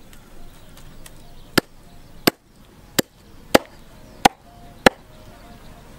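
A cleaver chopping through a snake's body onto a wooden chopping block: six sharp chops, about one every two-thirds of a second, starting about a second and a half in.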